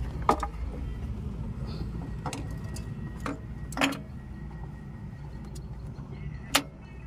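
A handful of short, sharp metallic clicks and taps as a metal fitting on the engine block is handled by hand, the loudest a little past halfway, over a steady low rumble.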